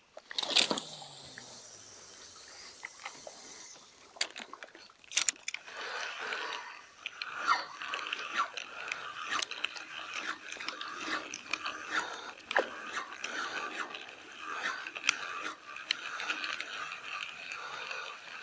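Fishing reel being cranked to retrieve a jig lure: a fast, steady run of small mechanical clicks, after a couple of sharp handling knocks, one about half a second in and one about five seconds in.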